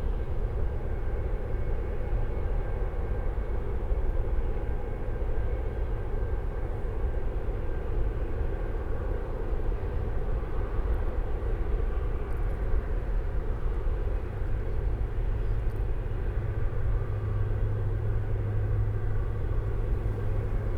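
Oil refinery heard from about a mile away: a steady low industrial rumble with the rush of its burn-off flares and faint steady machine hums over it. A deeper hum swells in the second half.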